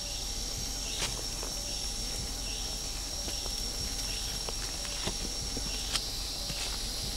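Steady high-pitched insect drone, with occasional faint clicks and rustles.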